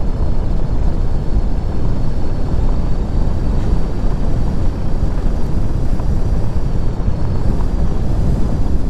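Truck driving: a loud, steady rumble of engine, tyres and wind noise.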